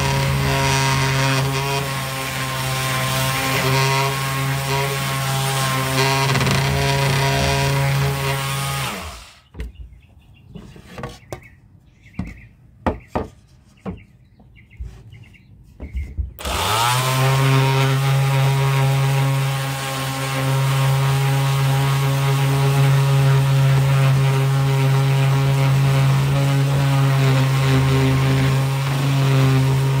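Electric sander running on a wooden board with a steady hum. It stops about nine seconds in, leaving a few light knocks and clicks. It starts up again around sixteen seconds in, its pitch rising as it spins up, and runs on steadily.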